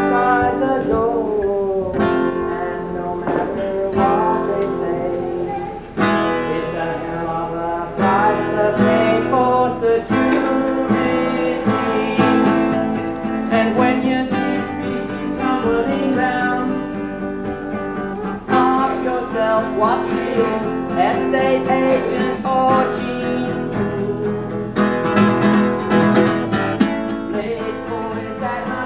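Live acoustic guitar strummed in a solo folk song, with chords struck every couple of seconds.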